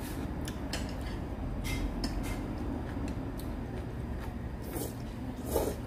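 Eating at the table: spoons and chopsticks clicking against bowls in short, scattered taps, with a louder sound about five and a half seconds in, over a steady low room hum.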